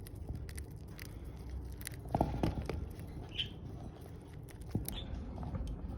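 Pet budgerigars making small clicking and scratching sounds, with a brief call about two seconds in and a couple of short, high chirps after it.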